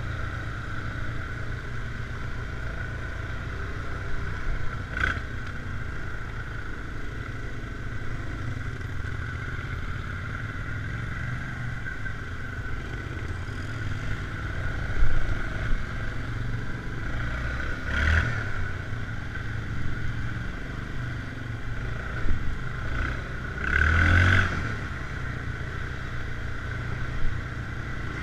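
ATV engine running steadily at trail speed, with several short knocks and clatter as the quad rides over bumps and roots.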